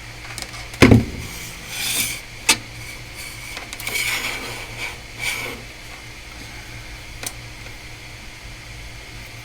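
Objects and tools being handled on a workbench: a heavy thump about a second in, then rustling and a couple of sharp clicks. A steady low hum runs underneath.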